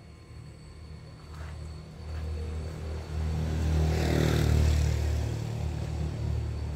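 A motor vehicle passing by unseen: a low engine rumble that grows louder to a peak about four seconds in, then fades.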